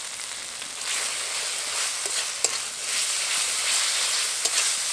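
Onion, ginger and garlic paste with spices sizzling in mustard oil in a metal kadai while a metal spatula stirs and scrapes it. The sizzle grows louder about a second in, with a few sharp clicks of the spatula against the pan.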